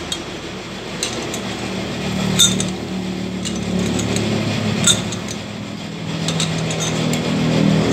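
Sharp metallic clinks of a chuck key being worked in a lathe's four-jaw chuck as the jaws are tightened down on a brake rotor. There are several single clinks a second or two apart over a steady low hum.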